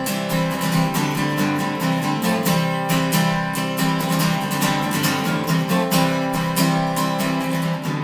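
Acoustic guitar strummed in a steady rhythm with no singing: an instrumental break between verses of a song.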